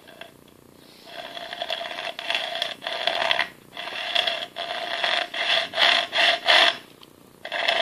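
Hacksaw cutting a 1/8-inch aluminium plate held in a vise: rasping back-and-forth strokes starting about a second in, with a short pause near the end before sawing resumes.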